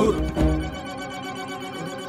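Cartoon background music: a fuller passage with low notes drops away about a second in, leaving a quiet held chord.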